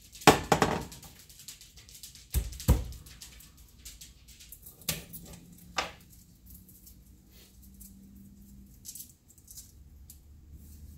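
A kitchen knife and a garlic clove handled on a wooden cutting board: a few sharp knocks and clicks in the first six seconds, the loudest near the start, then only faint small clicks as fingers work the clove.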